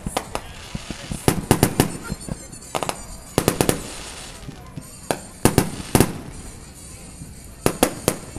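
Aerial firework shells bursting: clusters of sharp bangs and crackles, coming in groups every one to two seconds.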